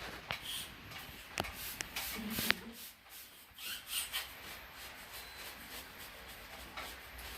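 Rubbing and scraping with scattered sharp clicks and taps: hands working on the parts of a wall-mounted air conditioner during cleaning.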